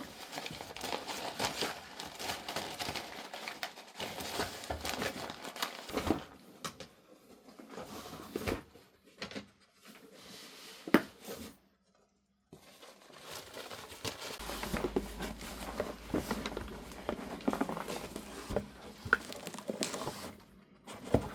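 Rustling and crinkling with many small irregular clicks and knocks, like objects being handled in a small room, with one sharper click about halfway through.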